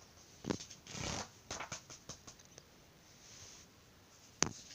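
Paper rustling and handling noises from the glossy pages of a hardback annual as it is held and turned. There are several short rustles in the first two seconds, then a sharp tick near the end.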